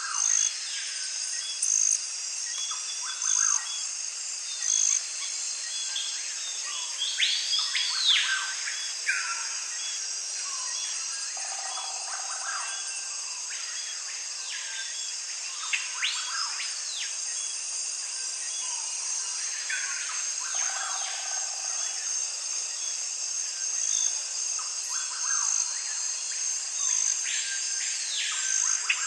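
Nature ambience of insects trilling steadily, with birds calling: short high chirps about every second and a half for the first few seconds, and repeated calls that rise and fall in pitch.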